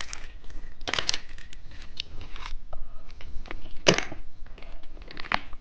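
Candy packaging being handled and opened: scattered crinkles and small clicks, with two sharper cracks about a second in and near the four-second mark.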